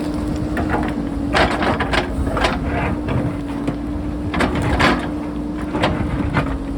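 JCB backhoe loader's engine running at a steady pitch, with scattered scrapes and knocks as the bucket works through rock.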